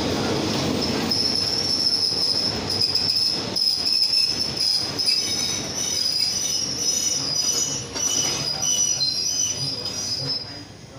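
State Railway of Thailand passenger train rolling slowly in, its steel wheels and brakes squealing in several high tones over a low rumble and clatter. It goes quiet about ten seconds in as the train comes to a stop.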